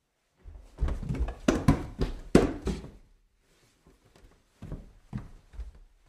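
Heavy, thudding footsteps going up a staircase. A quick run of loud steps starts about half a second in and lasts about two and a half seconds; after a pause come a few softer steps near the end.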